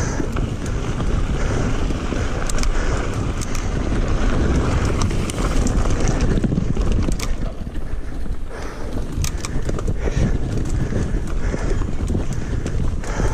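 Mountain bike riding along a dirt singletrack: a steady low rumble of wind on the camera microphone and tyres on the dirt, with many scattered sharp clicks and rattles as the bike goes over bumps.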